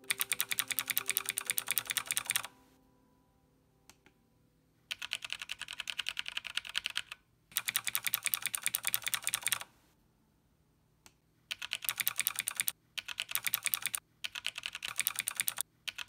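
Fast typing on mechanical keyboards, clattering in about six runs of a second or two with short pauses between. The first runs are on a Razer BlackWidow Ultimate and the last on a Zalman ZM-K900M with Kailh brown tactile switches, which the reviewer finds quieter.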